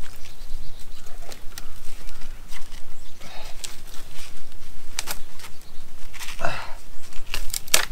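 Dry brush and sticks rustling and snapping while a steel leg-hold trap is worked open to free a porcupine's leg, with sharp clicks and knocks throughout. Three short falling whines are heard, the first about three seconds in.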